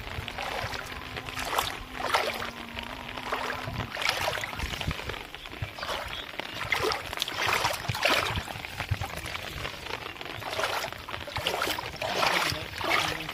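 Shallow water splashing and sloshing in uneven surges, roughly one a second, as a fishing net is worked through it.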